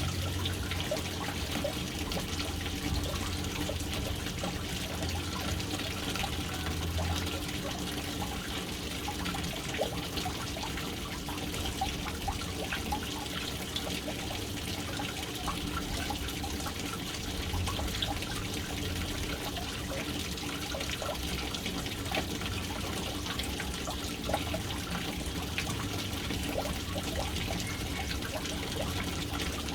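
Water falling into a household water storage tank: a steady splashing and trickling with a low rumble underneath.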